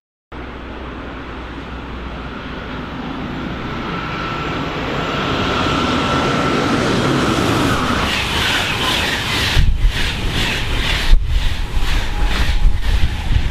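InterCity train hauled by an electric locomotive approaching and passing at speed: a rushing noise that builds steadily with a steady high tone over the first half, then loud passing noise of the coaches with several sharp knocks of wheels over the track.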